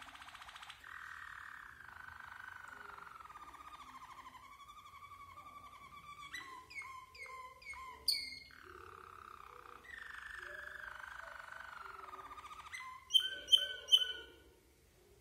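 White Waterslager (Malinois) song canary singing: long rapid rolling trills that slide slowly down in pitch, broken about six seconds in by a quick run of separate notes, then three loud sharp notes near the end.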